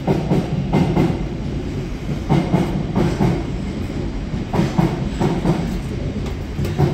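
A train running through the station: a steady low rumble with irregular heavier knocks.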